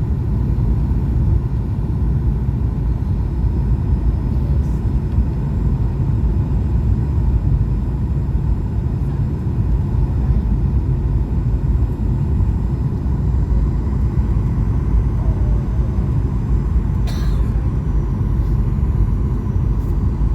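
Boeing 737-800 cabin noise from a window seat: a steady, loud low rumble of the engines and airflow, with a faint steady tone above it. A single short click comes about 17 seconds in.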